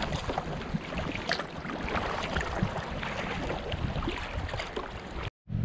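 Wind-driven chop splashing and slapping against the bow of a moving kayak, with wind buffeting the microphone. The sound breaks off abruptly near the end.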